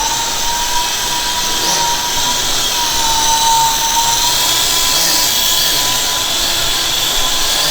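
Small battery-powered RC helicopter's electric motor and rotor whining at a steady pitch that wavers slightly as the throttle shifts.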